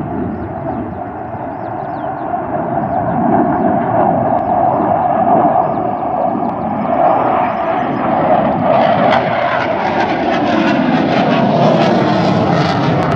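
MiG-29 fighter's twin Klimov RD-33 turbofan engines running as the jet flies overhead. The noise grows louder and harsher about nine seconds in, with a falling whine near the end.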